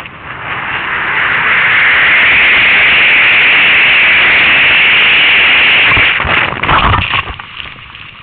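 Wind rushing over a helmet camera's microphone, building to a loud steady rush as the skier gathers speed downhill. About six seconds in it breaks off into a short cluster of heavy thumps as the skier falls into the snow.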